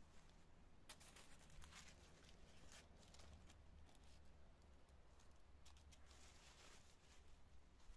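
Near silence with a few faint, short knocks and rustles of wooden poles being handled and set upright in a stick shelter's doorway, over a low steady hum.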